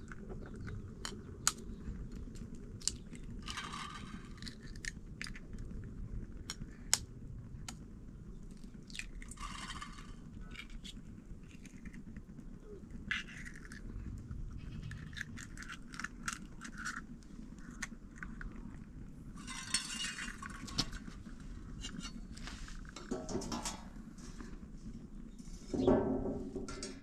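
Kitchenware being handled: scattered sharp clinks of dishes and utensils and several short scraping passages, over a steady low rumble.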